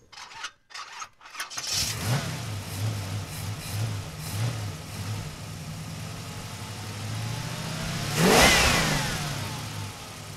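A car engine, heard first as a few short clicks and then starting up. It runs with a steady low note that pulses in a string of rhythmic revs. About eight seconds in it surges loudly, and then its pitch falls away.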